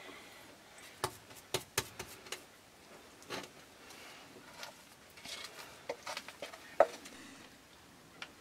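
A wooden spoon scraping and knocking against a mixing bowl as thick brownie batter is scooped out into a glass baking dish: a scatter of soft clicks and scrapes.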